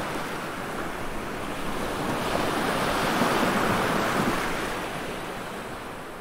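Ocean surf: a wave washing in, swelling to a peak about halfway through and then receding.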